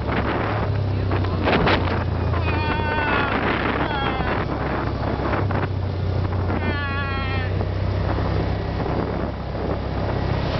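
Yamaha Rhino side-by-side's engine running steadily under way on a gravel track, with wind buffeting the microphone. Three brief high, wavering squeals cut in about two and a half, four and seven seconds in.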